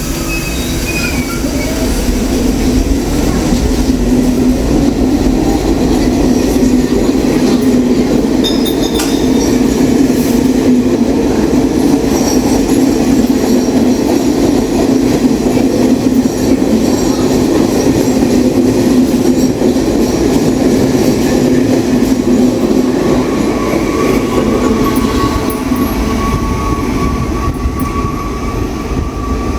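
New York City subway train running on the Brighton Beach Line: a loud, steady rumble of wheels on rail, with a thin, steady high whine joining near the end.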